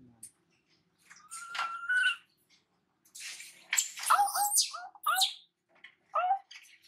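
Water splashing and sloshing in a metal basin as a baby monkey is bathed, with several short high squeaks from the infant monkey in the second half.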